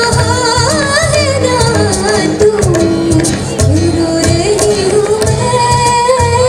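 Live music: a woman sings a melody with long, wavering held notes that glide up and down, over acoustic guitar, tabla and a steady beat of low drum strokes from a cajon.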